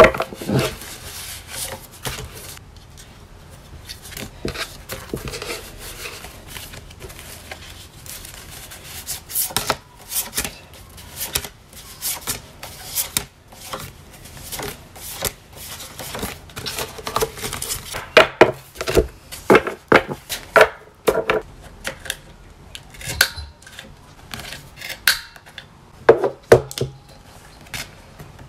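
Paper art prints and cards being shuffled and handled, with sharp clicks of a handheld corner-rounder punch trimming their corners, which come louder and more often in the second half.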